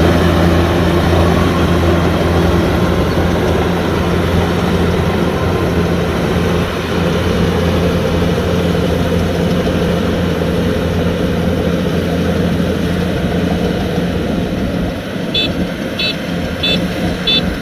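Diesel engine of a Kubota DC-105X combine harvester running steadily, then easing off near the end. At that point a high electronic warning beeper starts sounding, about once every two-thirds of a second.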